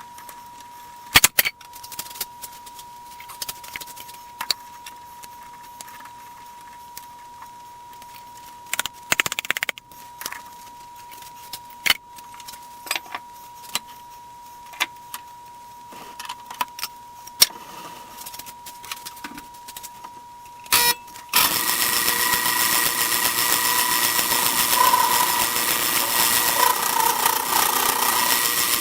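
Metal tools and small parts clinking and tapping. About twenty seconds in, a workshop power machine switches on and runs with a steady whine.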